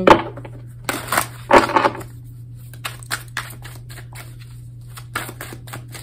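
Tarot cards being drawn and shuffled by hand: a run of short card flicks and snaps, several in the first two seconds and a few more later, over a faint steady low hum.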